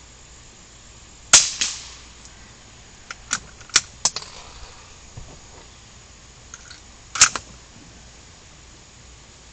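Two rifle shots about six seconds apart, the first about a second in with a short echo after it, the second near the end. Between them comes a quick run of four lighter clicks.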